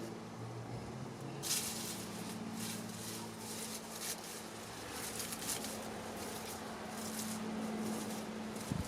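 Light, irregular scratching and rustling that starts about one and a half seconds in, over a steady low hum.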